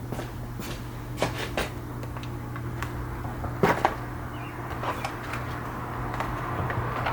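Scattered clicks and knocks of plastic motorcycle tail panels and fasteners being handled and removed, the loudest a pair about three and a half seconds in, over a steady low hum.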